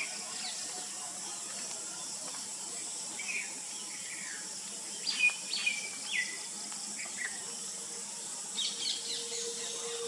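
Parakeet giving a series of short, high, falling call notes in loose clusters, loudest about five seconds in, over a steady high insect hiss.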